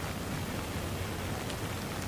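Steady rain falling on wet ground and puddles: an even hiss of many drops, with a few faint separate drop hits.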